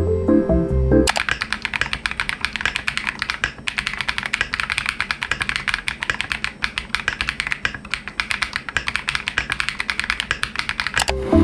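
Fast typing on a KiiBOOM Phantom 81 V2 mechanical keyboard with a clear acrylic case: a dense run of key clacks that starts about a second in and stops just before the end. Background music plays on either side of the typing.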